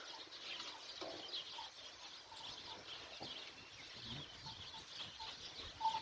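Faint birdsong: small birds chirping over and over, with a few soft clicks.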